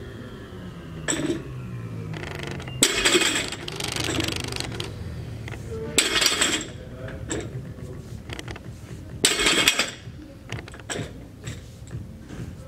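Loaded barbell set down on the gym floor at the bottom of each deadlift rep, its black bumper plates clanking and rattling on the sleeves. Three short clatters about three seconds apart.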